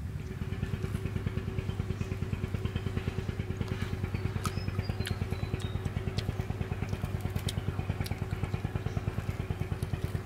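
A small engine running steadily, a rapid, even low pulsing of about nine beats a second with a steady hum above it. A few sharp clicks sound over it.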